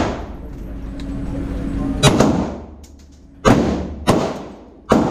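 Handgun fired three times, shots about a second and a half apart, each sharp report followed by a long echo off the walls of an indoor range.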